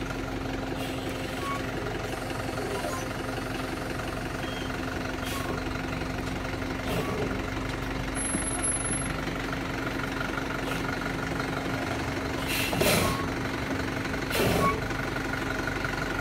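Forland dump truck's diesel engine running steadily at low revs as the truck creeps forward. Near the end come two short, louder bursts of noise a little under two seconds apart.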